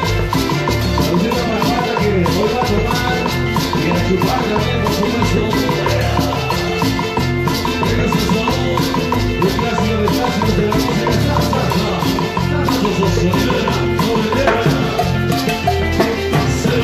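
Up-tempo Latin dance music, loud and continuous, with a steady beat and a crisp, regular percussion pattern.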